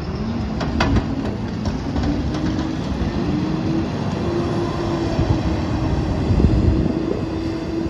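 Freightliner M2 rear-loader garbage truck's diesel engine pulling away, its pitch rising over the first second and then holding steady under a heavy low rumble. A few sharp knocks near the start.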